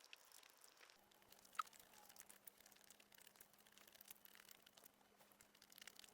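Near silence with faint eating sounds: soft scattered clicks and rustles of chewing and handling food, with one sharper tick about a second and a half in.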